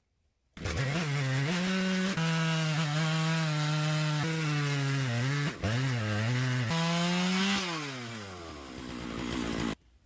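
Chainsaw on an Alaskan chainsaw mill ripping lengthwise through an ash log at full throttle, its pitch dipping briefly a few times under load. Near the end the throttle is let off and the engine winds down in pitch.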